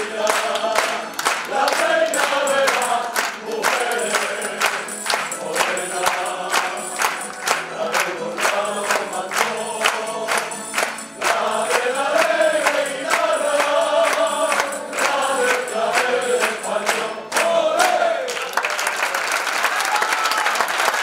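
Tuna of male voices singing in chorus to rhythmically strummed bandurrias, lutes and guitars. The song ends about eighteen seconds in and the audience applauds.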